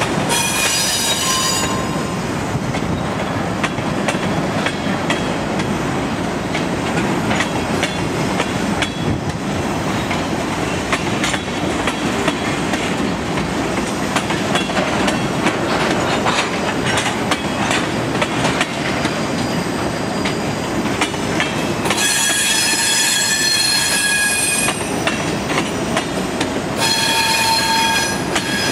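Freight train cars (covered hoppers and tank cars) rolling past: a steady rumble of wheels on rail with many clicks over the joints. A high-pitched wheel squeal sounds briefly at the start, again for a few seconds near the end, and once more just before the end.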